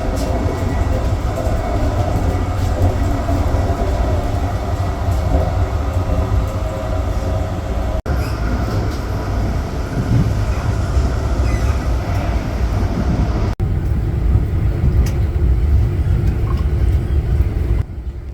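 Brightline passenger train running on the rails: a loud, steady low rumble, broken twice by brief dropouts and getting quieter near the end.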